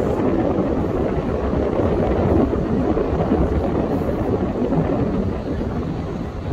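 Wind buffeting the microphone on an open beach: a loud, low, gusty rumble with no steady pitch, easing slightly near the end.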